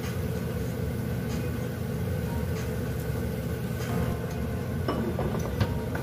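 Broth at a rolling boil in a pot, a steady low rumbling bubble, with a few faint clicks.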